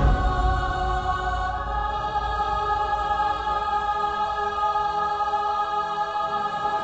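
Trailer soundtrack music: a sustained choral chord held over a low rumble that thins out about five seconds in.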